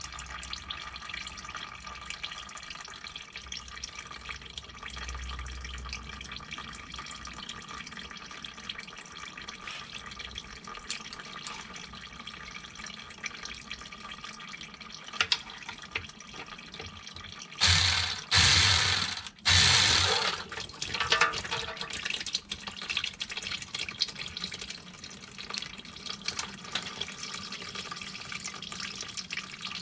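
Automatic transmission fluid dripping and trickling from the loosened transmission pan into a drain pan. About 18 seconds in, a louder rushing noise comes in three short bursts.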